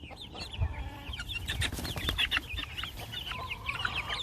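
A flock of young chickens clucking and cheeping, many short high calls overlapping, with a few sharp taps among them.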